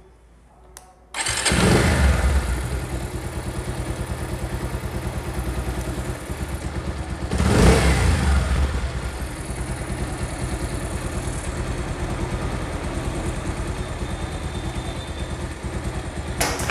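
Bajaj Pulsar's single-cylinder motorcycle engine started about a second in after a couple of faint clicks, then idling with an even pulse and one brief rev near the middle. Its timing chain has just been tightened: the chain's rustling rattle is reduced but still present.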